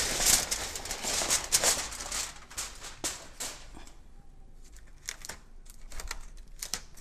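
Aluminium foil crinkling and crackling as a tightly crimped foil cover is worked loose from a disposable aluminium roasting pan. The crackling is dense for the first couple of seconds, then thins to scattered crinkles.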